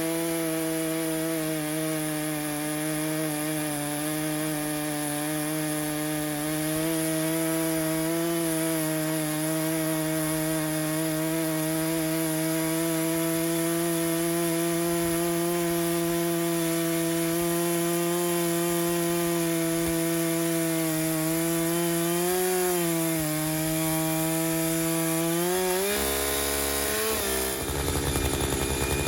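Echo CS-590 two-stroke chainsaw running steadily under load, its full chisel chain cross-cutting a large red oak log. Near the end the engine pitch rises and the sound changes.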